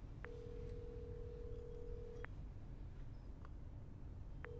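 Telephone ringback tone on a mobile call waiting to be answered: one steady beep lasting about two seconds, then after a two-second pause the next beep begins near the end.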